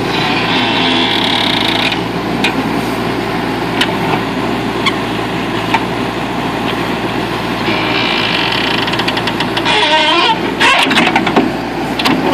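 Backhoe's diesel engine running steadily as it digs, with a few sharp knocks and clanks and two stretches of higher-pitched hiss, near the start and about eight seconds in.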